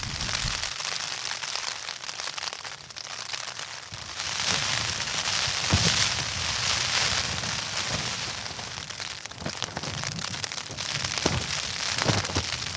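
Heavy rain pattering on a surface as a dense crackle of many small drops, growing heavier about four seconds in.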